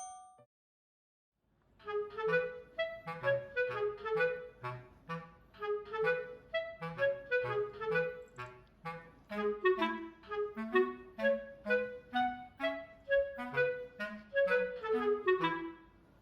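Background music: an instrumental tune of short, evenly paced notes over a bass line, starting after a brief silence about a second and a half in.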